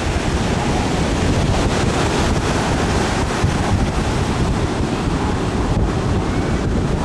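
Wind buffeting the microphone over the wash of ocean surf: a steady, dense rushing noise, heaviest in the low end.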